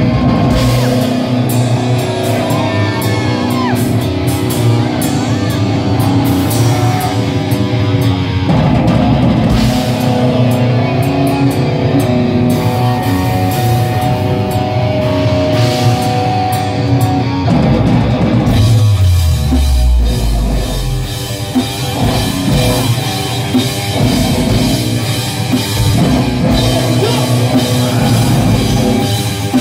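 Live groove metal band playing: heavily distorted electric guitars, bass and drum kit. Held chords give way about two-thirds of the way through to a low note sliding steeply down, followed by choppier rhythmic riffing.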